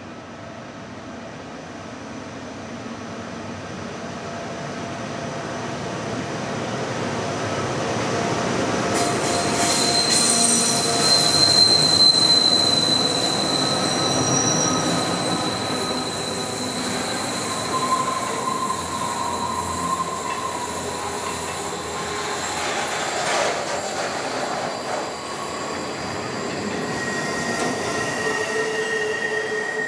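Pacific National NR class GE diesel-electric locomotives working hard up a steep grade, growing louder as they approach and pass at about eleven seconds in. The container wagons then roll by with a steady rumble and high-pitched wheel squeals that change pitch several times.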